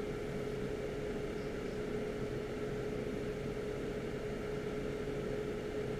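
Hot air rework station blowing steadily on a chip's reballing stencil: a constant hiss of air with a steady hum. The dry solder paste under it is close to reflowing into balls.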